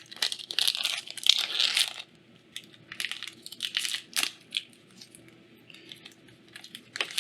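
A Magic: The Gathering draft booster pack's foil wrapper being torn open and crinkled for about two seconds. After that come scattered light clicks and snaps as the cards are pulled out and handled.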